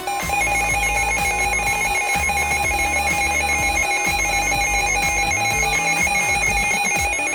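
Emergency Alert System attention signal: a loud, steady electronic two-tone alarm held for about seven seconds, signalling that an emergency alert message is about to be read.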